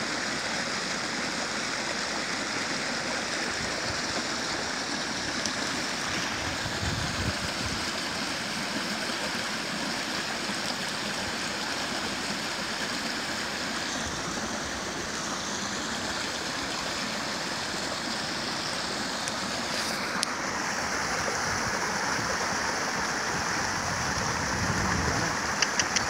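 Water rushing steadily over a small waterfall, pouring over a low dam of branches and debris.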